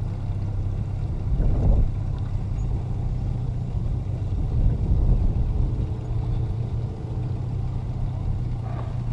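An engine running steadily at one pitch, with a louder low rumble about one and a half seconds in and again around five seconds in.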